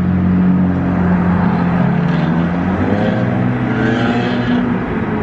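A motor vehicle's engine running close by and loud, with its low pitch sliding slowly up and down.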